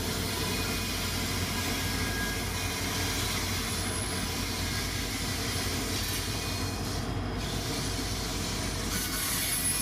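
A train's cars rolling past with a steady noise of wheels on rails.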